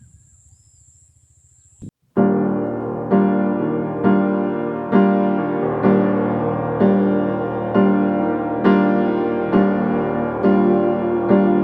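Background piano music, slow chords struck about once a second, starting about two seconds in after faint low noise with a thin steady high tone.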